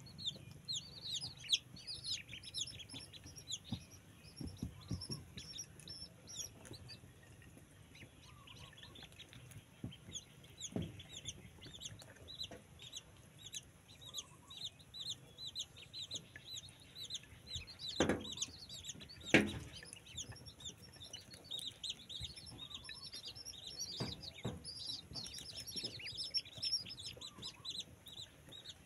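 A brood of newly hatched ducklings peeping without pause, many short, high, falling calls overlapping. A couple of sharp knocks stand out a little past the middle.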